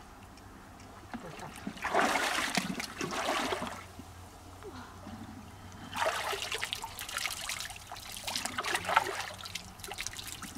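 Shallow river water splashing and sloshing as hands rummage along the riverbed and wader-clad legs shift in the water. There are two bouts: a short one about two seconds in, and a longer, choppier one from about six seconds in.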